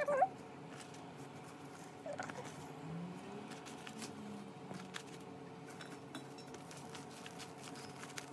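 Hands pressing and smoothing fresh bottle gourd leaves in a steel pot: soft rustling and scattered light clicks of the leaves and pot, over a faint steady hum.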